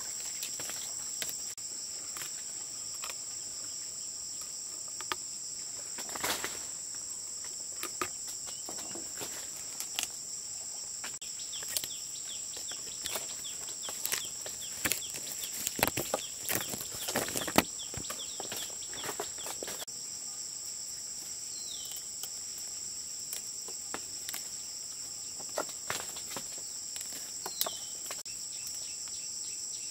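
Steady high-pitched insect chorus droning throughout, with scattered clicks and rustling, busiest in the middle. A couple of short, falling bird chirps come near the end.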